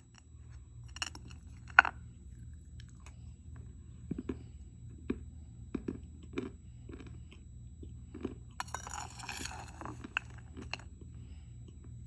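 Dry edible clay being bitten and chewed close to the microphone: scattered sharp crunches, the loudest about two seconds in, and a longer spell of crackling around nine seconds in. A faint steady low hum lies underneath.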